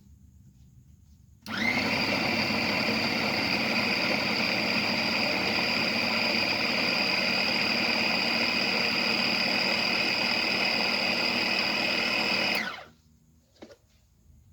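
Small electric meat chopper (food chopper) motor switching on about a second and a half in, spinning up and running at a steady high whine for about eleven seconds as its blades chop cassava, then switching off and winding down. It is run in a short burst of about ten seconds, as the owner does to keep the cheap motor from wearing out.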